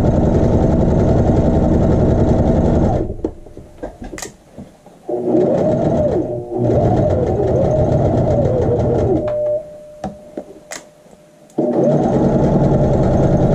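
Electric household sewing machine stitching in three runs, stopping twice for about two seconds each, with a few light clicks in the pauses.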